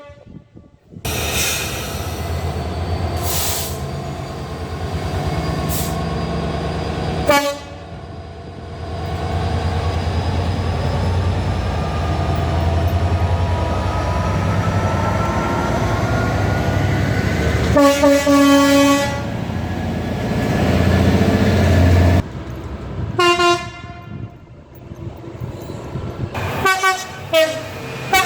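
British trains passing at speed, sounding their horns over the heavy rumble of engine and wheels: a short blast about seven seconds in, a longer blast about eighteen seconds in, and a few short toots near the end.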